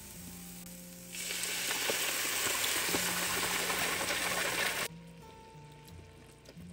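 Beef stock poured into a hot skillet of browned mushrooms, sizzling loudly; the sizzle starts about a second in and cuts off abruptly near five seconds, with quiet background music underneath.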